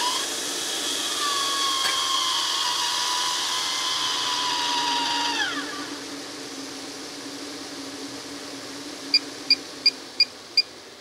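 Maxxair 7500K roof vent fan motor starting up with a rising whine, running steadily for about five seconds, then winding down with a falling pitch as it stops: the newly installed fan working on its first test. Near the end come five quick electronic beeps.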